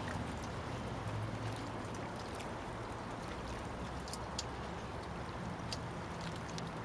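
Seawater sloshing and trickling among shoreline rocks, a steady wash, with a few faint sharp clicks scattered through it.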